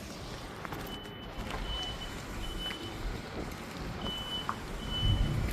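A vehicle's reversing alarm: short, steady high beeps repeating about every 0.7 s, with a pause of about a second and a half in the middle. A low rumble comes in near the end.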